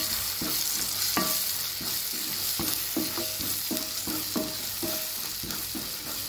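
Spatula scraping and knocking against a kadai about twice a second, each knock with a short ring from the pan. It is stirring spice powders into a fried onion-and-tomato masala over a steady sizzle of hot oil.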